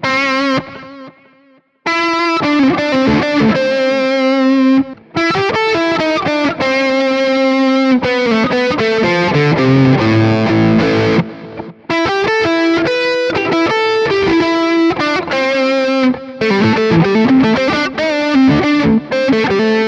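Electric guitar played through Neural DSP's Mesa Boogie Mark IIC+ amp model on its distorted 'Liquid Lead' preset: a lead line of sustained single notes with vibrato, in several phrases with short breaks between them.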